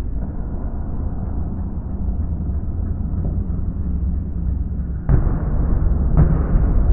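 Fireworks display: a continuous rumble of aerial shell bursts, with two sharper, louder bangs about five and six seconds in.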